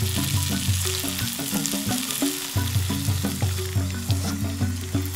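Genjer greens sizzling in a wok over a wood fire as they wilt, with a hiss and small crackles. Background music with a stepping bass line plays alongside.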